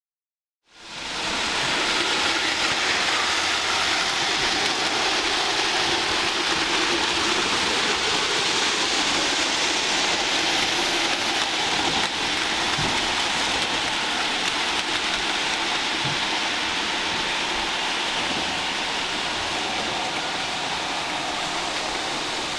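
Model trains running on a layout: a steady whirring, hissing rattle of wheels on track and small motors, starting about a second in.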